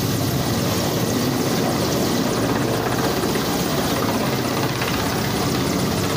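Mi-17-type military transport helicopter flying low overhead: a loud, steady rotor chop over the whine of its engines.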